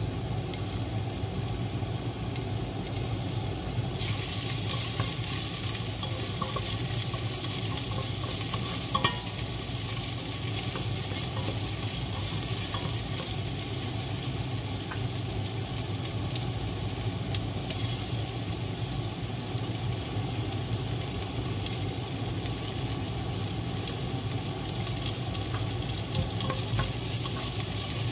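Garlic and ginger sizzling in hot oil in a pot as a wooden spoon stirs them, with a few light knocks of the spoon. The sizzle turns brighter and louder about four seconds in.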